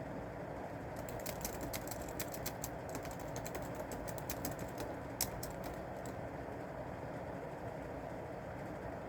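Typing on a computer keyboard: a run of irregular key clicks for about five seconds, with one louder keystroke near the end of the run, then the typing stops and only a steady background hiss remains.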